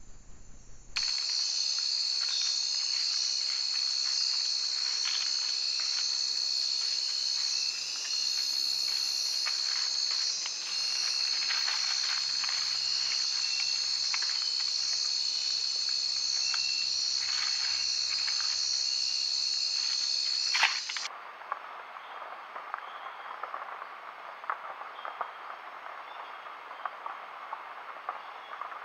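Night-time tropical forest insect chorus: a loud, steady, high-pitched trill. Near the end it cuts off with a click and gives way to a quieter chorus of quick, dry ticks.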